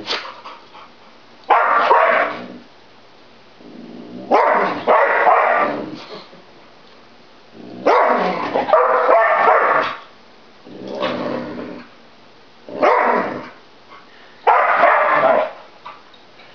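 Two dogs barking at each other in play, in about seven loud bouts of a second or two with short pauses between.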